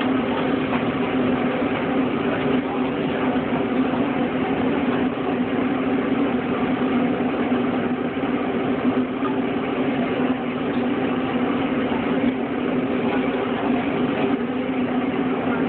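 A steady mechanical hum, like an engine or motor running at idle, under a constant noisy background.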